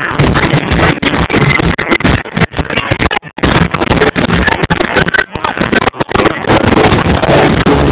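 Loud club music through a phone's overloaded microphone, distorted and cutting out briefly many times.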